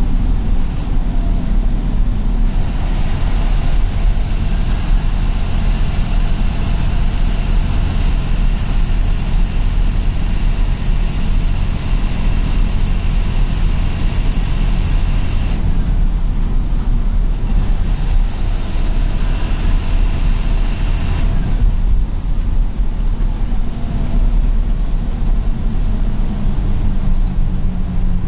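Ashok Leyland bus diesel engine running under way, heard from the cab: a loud steady low drone. A high whine comes in a couple of seconds in, cuts off about halfway through, and returns briefly a few seconds later.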